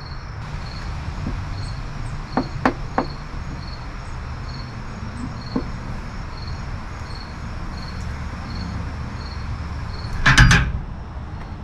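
An insect chirps steadily, about one and a half short high chirps a second, over a low outdoor rumble, with a few light taps a few seconds in. About ten seconds in there is a brief loud clatter as the plastic welding iron is set down on the metal patio table.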